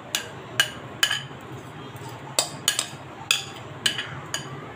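About nine sharp, irregular clinks of kitchenware as beaten yogurt is tipped from a glass bowl into an aluminium pressure cooker, over a faint steady low hum.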